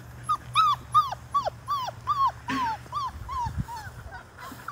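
A five-week-old Labrador Retriever puppy whimpering: a run of about ten short, high whining cries, each rising then dropping in pitch, roughly three a second, growing fainter toward the end.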